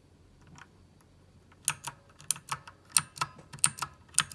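Keys of a VicTsing budget mechanical gaming keyboard being pressed in a key test: faint at first, then sharp, irregular clicks from about a second and a half in, several a second.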